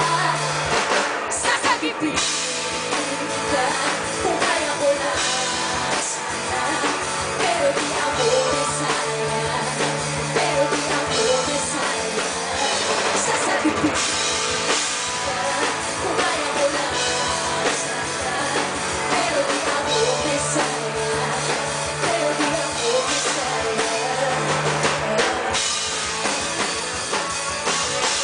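Live pop-rock band playing through PA loudspeakers: drum kit, electric guitars and bass guitar, at a steady, even loudness.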